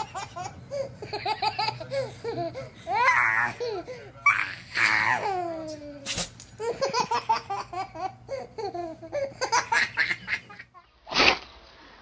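A baby laughing in repeated bursts, with a couple of higher squealing laughs. About a second before the end comes one short, sharp dog sneeze.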